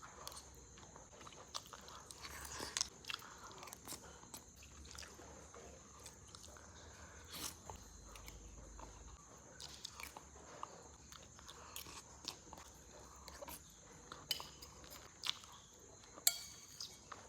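Close, faint chewing and biting of satay and sausage, with irregular small wet mouth clicks and a few sharper clicks near the end, over a steady faint high hiss.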